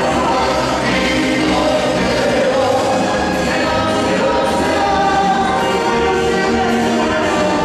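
Live tropical dance band playing through a PA system: male voices singing over keyboard, electric guitars and a steady, pulsing bass beat.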